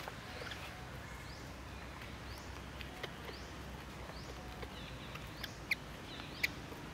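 Faint birdsong outdoors: short high chirps rising in pitch, about once a second, with two sharp ticks near the end.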